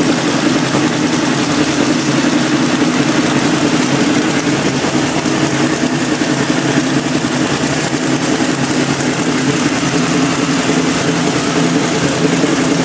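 A trophy truck's fuel-injected race engine running at a steady idle on its first start-up, loud and unchanging in pitch.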